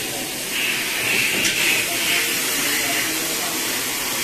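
Compressed-air hiss from a pneumatic tyre changer as its turntable clamp jaws are worked by the air cylinder, brighter for the first couple of seconds, with one short click about one and a half seconds in.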